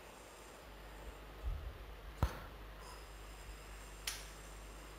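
A few isolated clicks from a computer keyboard and mouse during text editing, the sharpest about two seconds in and another about four seconds in, over faint room hiss.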